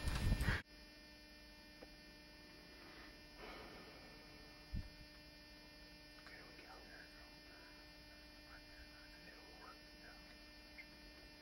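Steady electrical hum at a low level, with faint scattered chirping and a single soft thump about five seconds in. A louder stretch of noise cuts off suddenly just after the start.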